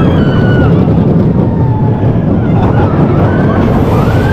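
A roller coaster train running along its track: a loud, steady rumble of the ride mixed with wind buffeting the camera microphone. A few brief high gliding squeals come just after the start and again after about three seconds.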